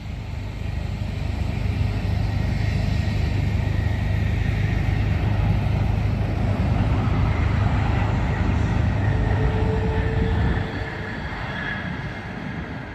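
Steady loud rumble of a Delta jet airliner landing, easing off about ten and a half seconds in.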